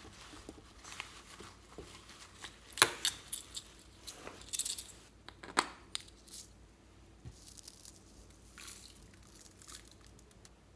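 Fluffy slime being stretched and pressed by hand, giving irregular crackling clicks and sticky pops that are loudest and densest a few seconds in, then thin out.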